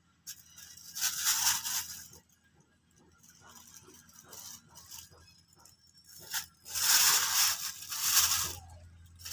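Thin plastic bag crinkling and rustling as fish are put into it and the bag is handled, in two bouts: a short one about a second in and a longer one starting about seven seconds in.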